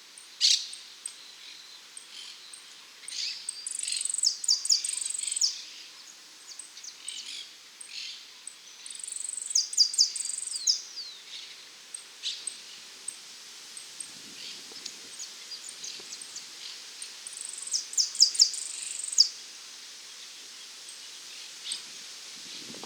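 Saffron finch (dorado) singing: three song phrases, each closing in a fast, high trill, with single short chips in between.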